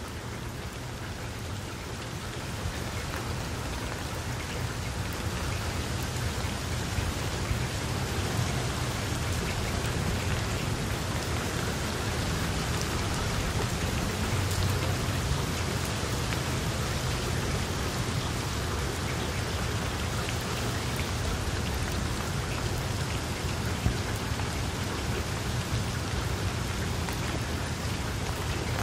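Steady rain falling on a water surface, with a low rumble underneath. It grows a little louder over the first few seconds.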